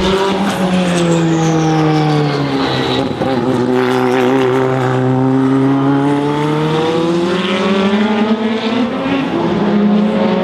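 Racing car engine, its revs falling for about three to four seconds and then climbing steadily again, as when a car brakes for a corner and accelerates out of it. A fainter high whine falls in pitch over the first few seconds.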